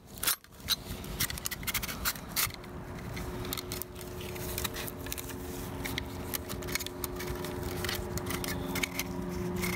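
Sharp metal clicks and scraping from a ratcheting piston ring compressor as its steel band is fitted and clamped around a piston and its rings. A steady low hum grows louder underneath from about halfway.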